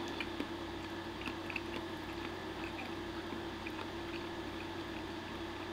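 A man eating spaghetti: faint chewing and a few light clicks of a metal fork twirling pasta on a wooden plate, over a steady low hum.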